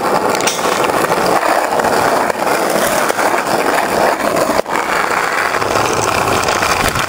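Steady rolling roar of wheels on skatepark concrete, heard close to the moving camera, with a few faint ticks. It drops out for a moment about two-thirds of the way through.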